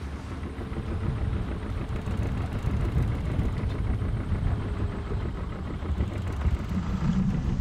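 Wind rumbling and buffeting on the microphone over the rush of water along the hull of a sailboat under way in choppy sea.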